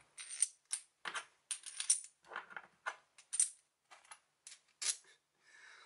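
Metal washers and spacers clinking against each other and a threaded steel rod as they are loaded onto a homemade bearing press; about a dozen light, irregular metallic clicks.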